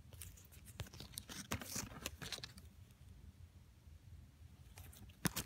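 Hands handling a plush toy's hang tag: scattered small clicks and rustles, busiest in the first couple of seconds, with a sharper click near the end.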